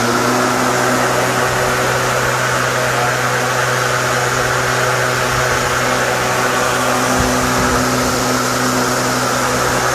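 Litheli 40-volt cordless brushless lawn mower running steadily at full speed with no load, blade spinning in the air over bare concrete: a steady electric motor hum under a loud rushing whoosh of air from the blade deck.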